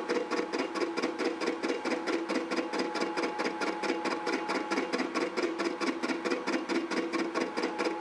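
Indexable face mill cutting iron on a milling machine, each insert striking the work in turn as a steady, rapid chatter of about five hits a second, over the steady hum of the machine's spindle drive.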